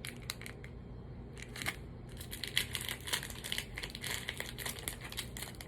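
Candy wrapper crinkling and crackling as a piece of candy is unwrapped: a few scattered crackles at first, then a quick dense run of them from about two seconds in.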